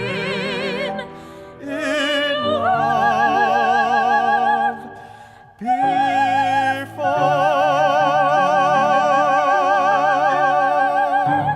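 A solo singer holding long, wide-vibrato notes in a big ballad style over sustained instrumental accompaniment, with a short break about five and a half seconds in before a final long held note that ends near the close.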